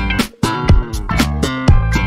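Background music: an upbeat funk-style track with plucked guitar and bass and a steady beat.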